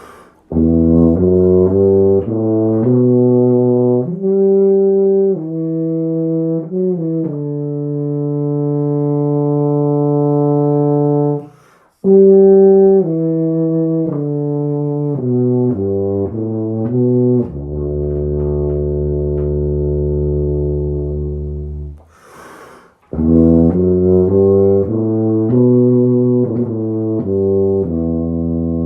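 Mirafone 1865U five-valve CC tuba played through a Mike Finn MF3 mouthpiece: a phrase of low, sustained notes alternating with quicker moving notes. Two short breaths are taken between phrases.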